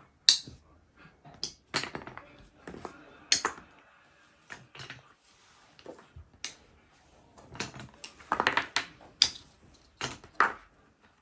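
Irregular knocks, clicks and clinks of small hard objects being handled, spaced unevenly.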